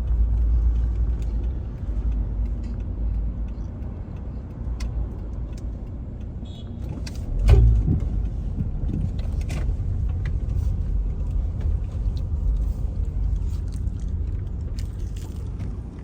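Car driving, heard from inside the cabin: a steady low engine and road rumble, with small rattles and clicks and one louder thump about halfway through.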